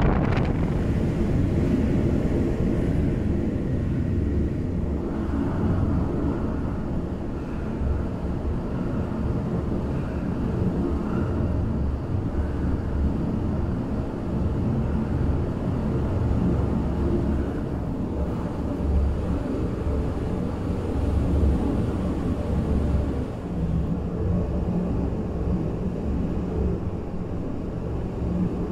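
Strong wind of over 30 knots buffeting the microphone: a loud, continuous low rumble that rises and falls with the gusts.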